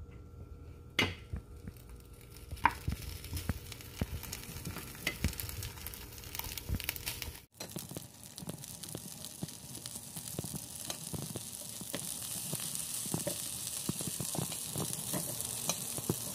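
Gyoza being set one by one into a hot dry frying pan with metal tongs: scattered light taps and clicks of tongs and dumplings against the pan, with a sizzle that builds steadily louder through the second half.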